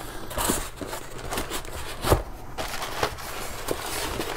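Packaging rustling and crinkling as small parts and hardware are handled and unpacked, with scattered light clicks and one louder knock about two seconds in.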